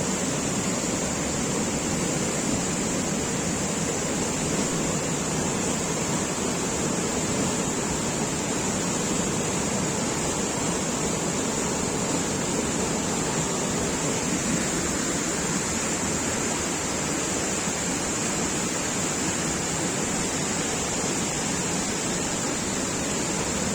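Water of a small waterfall pouring, a steady unbroken rush.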